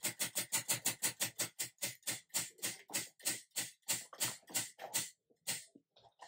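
Prize wheel spinning, its rim pegs clicking past the pointer: the clicks slow from about five a second to about two and stop a little over five seconds in as the wheel comes to rest.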